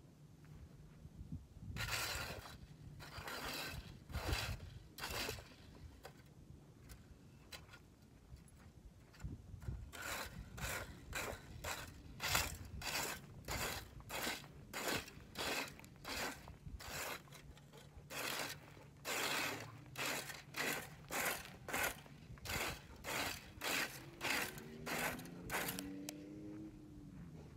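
A leaf rake scraping over dry grass and dirt in short, even strokes: a few strokes about two seconds in, then a steady run of about two strokes a second from about ten seconds in until near the end.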